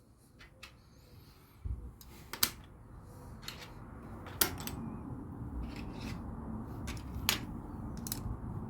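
Plastic LEGO pieces being handled and pressed together: a few sharp clicks over a low rustle of handling that grows louder about two seconds in.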